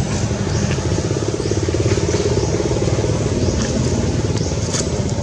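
A motor engine running steadily, with short high chirps repeating about once a second over it.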